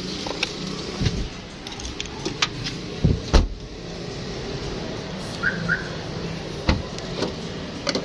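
Mitsubishi Mirage sedan's trunk lid slammed shut about three seconds in, two heavy thumps close together. Two short chirps from the aftermarket car alarm follow, then a single clunk near seven seconds as the remote trunk release is tested.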